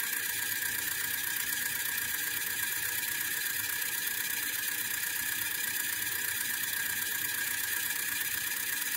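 Small N20 DC gear motor running steadily at speed, turning a magnet assembly through a universal coupling: a constant high-pitched whine and whir.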